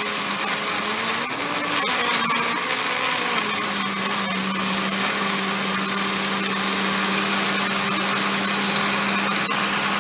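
Countertop blender running on a thick, heavy load of guava and a little water. The motor hum wavers in pitch for the first few seconds while the chunks are caught, then holds steady as the fruit turns to a smooth purée.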